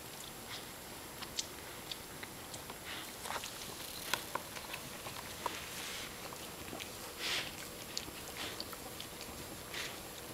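A dog grooming another dog with its mouth, licking and nibbling its coat: irregular small wet clicks and brief smacking sounds.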